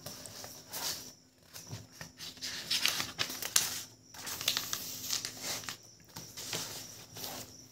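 Paper pages of a textbook being turned and handled, rustling in several bouts with short pauses between them.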